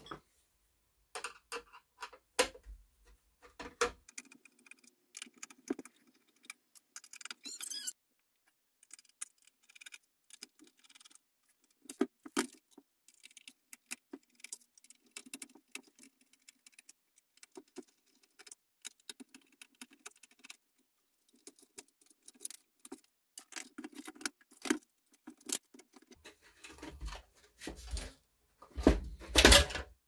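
Dismantling of a dehumidifier by hand: plastic housing parts and the finned metal coil assembly with its copper pipes click, rattle and knock against each other and the workbench in short irregular bursts, with a few heavier thumps near the end.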